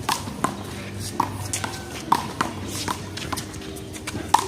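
Rubber handball being hit during a one-wall handball rally: a quick, irregular string of sharp smacks as the ball is struck by hand and slaps off the wall and pavement, the loudest about two seconds in and near the end.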